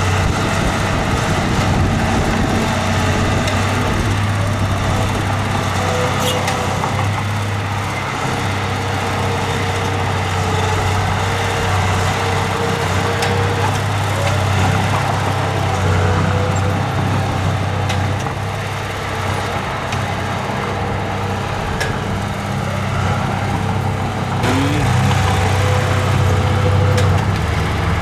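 Diesel engine of a heavy earthmoving machine running steadily under work, with a strong low hum and a few faint clanks; it grows a little louder near the end.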